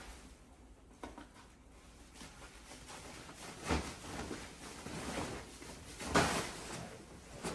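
Handling noise from carrying a large flat-screen TV into place: a few scattered knocks and rustles, the loudest about six seconds in.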